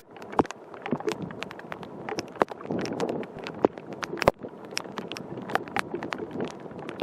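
Typhoon wind buffeting the microphone, with irregular sharp taps of heavy raindrops hitting the camera or its rain cover, several a second.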